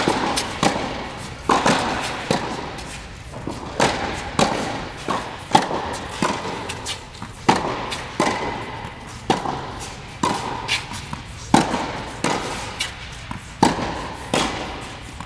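Tennis rally: balls struck by rackets and bouncing on an indoor hard court, a sharp pop about every half second or so, each echoing briefly in the large hall.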